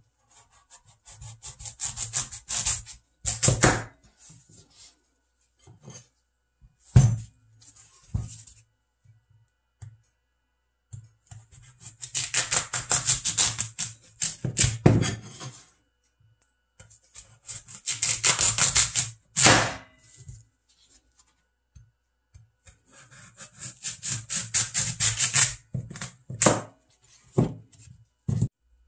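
Chef's knife sawing through a large raw Korean radish on a plastic cutting board: about four bursts of quick, crisp back-and-forth strokes, with pauses between them. Single knocks of the blade striking the board come in between, the loudest about seven seconds in.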